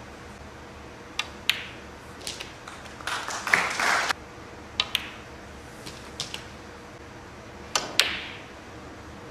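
Snooker shots: the cue tip clicking on the cue ball, followed a fraction of a second later by the cue ball striking an object ball, four times over. There are a few lighter knocks, and a brief noisy rattle about three seconds in.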